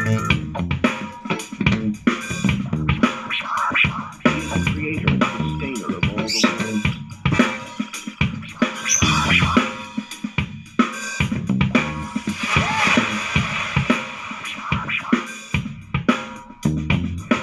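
Music with a drum-kit beat played through an Awei Y371 Bluetooth speaker, picked up by an external microphone.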